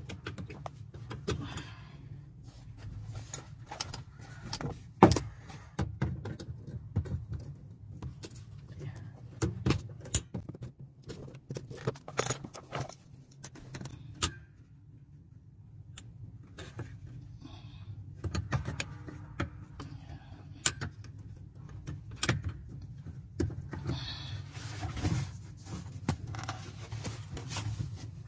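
Scattered metal clicks, rattles and knocks of an accelerator cable end and its lock being worked loose by hand from a truck's accelerator pedal arm and spring linkage, with a steady low hum underneath.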